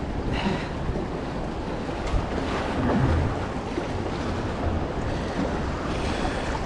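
Steady wind rumbling on the microphone over the wash of ocean surf against rocks.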